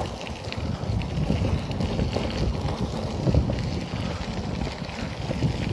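Wind buffeting the microphone of a phone riding on a moving bicycle: a steady noisy rush, heaviest in the low rumble.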